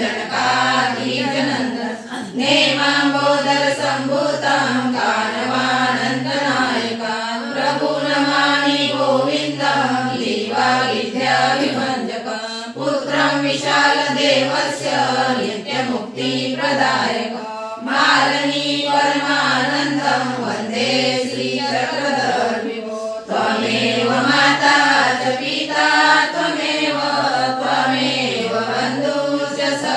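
A group of voices singing a devotional chant together, a continuous melodic hymn in phrases with short breaks between lines.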